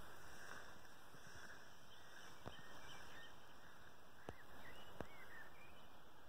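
Faint outdoor field ambience: a steady soft hiss with scattered faint distant bird chirps, and three soft clicks about two and a half, four and five seconds in.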